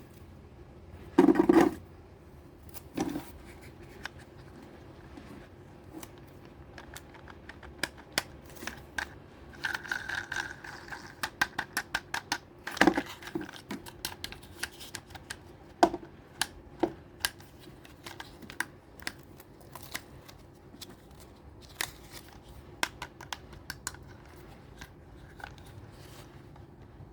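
Toy packaging and miniature diecast toys being handled during an unboxing: scattered sharp clicks and taps, a few louder knocks, and a short scraping rustle about ten seconds in.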